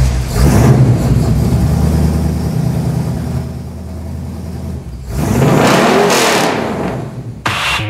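Car engine running with a steady low hum, revved up and back down about five seconds in.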